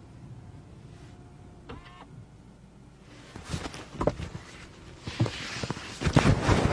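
Handling noise from a phone and its clip-on furry microphone being moved around a car interior: clicks and knocks, then loud rustling and thumps near the end as it brushes against the trim.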